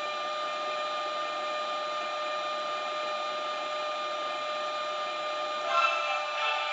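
Model Taurus electric locomotive's DCC sound decoder playing its running sound through the model's small speaker: a steady whirring hum with a constant whine over it, with a brief louder burst about six seconds in.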